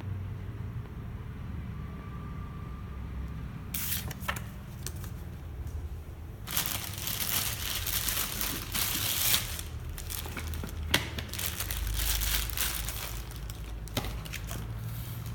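Thin plastic wrapping crinkling and rustling as it is handled and pulled off a mini chopper's plastic bowl and motor unit. It starts about four seconds in and is densest in the middle stretch, with a couple of sharp clicks of plastic parts near the end.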